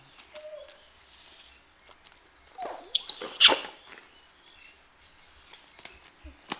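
A baby macaque gives one shrill, high-pitched scream, rising in pitch, lasting about a second, a little under three seconds in.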